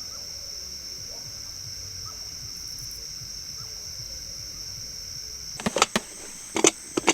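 Steady high-pitched chirring of night insects such as crickets, which cuts off abruptly about five and a half seconds in, followed by a few sharp clicks.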